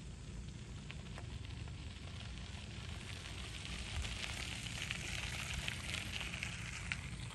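Water at a river's surface making a fine crackling, fizzing patter over a low rumble; the crackle thickens from about three seconds in.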